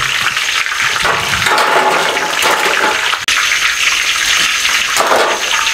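Hot ghee sizzling and crackling in an iron wok as spring rolls deep-fry, a dense steady hiss. It breaks off for a moment about three seconds in.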